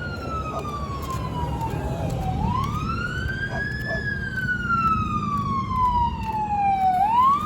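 Emergency vehicle siren in a slow wail, its pitch falling gradually, climbing back up about two seconds in, then falling slowly again before starting another climb near the end. A steady low rumble of road traffic runs beneath it.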